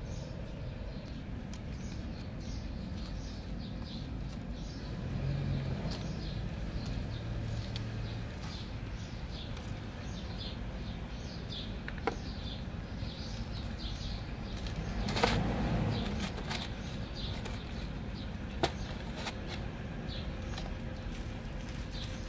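Small birds chirping repeatedly in the background, many short high chirps, over a steady outdoor hum. A couple of sharp clicks and one louder, brief rustling burst about two-thirds of the way through.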